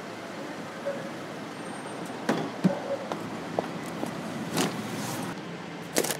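Knocks and thumps of a wooden cart panel and cardboard boxes being lifted, carried and set down, the loudest a little over two seconds in, over a steady hum of street traffic. At the very end there is a short rasp as a knife slits the packing tape on a cardboard box.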